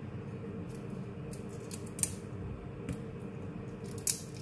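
Cooked prawns being cleaned by hand: short, sharp snaps and clicks as heads and shells are pinched and broken off, about six in all, the loudest about two seconds in and near the end, over a steady low hum.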